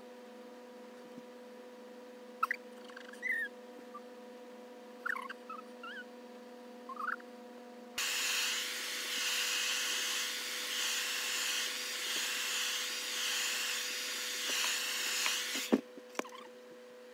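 Hand-held hair dryer switched on about halfway through and blowing for about eight seconds, its rush of air swelling and dipping as it is moved over the hair, then switched off with a click. Before it comes on there is only a low steady hum and a few brief high squeaks.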